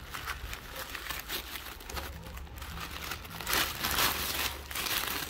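Black plastic bag crinkling and rustling as gloved hands unwrap it, the rustling growing louder about three and a half seconds in.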